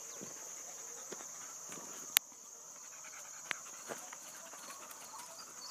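Steady high-pitched insect chorus, with scattered faint ticks and one sharp click a little over two seconds in.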